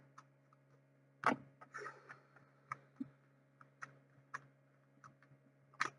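Tarot cards being shuffled and handled by hand: irregular sharp clicks and snaps of the cards, the loudest a little over a second in, over a faint steady low hum.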